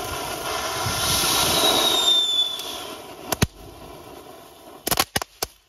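Small tube ground fountain firework hissing as it sprays sparks, the hiss fading about three seconds in. Then a single sharp crack, and a quick cluster of loud crackling reports near the end.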